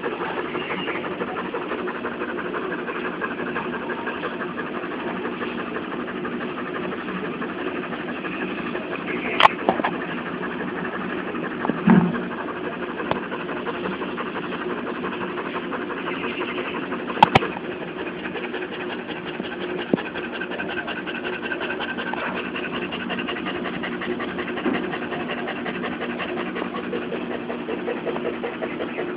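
Boxer dog panting hard and fast from the heat, a rapid, steady chuffing that sounds like a steam train. A few brief sharp clicks and knocks come through near the middle.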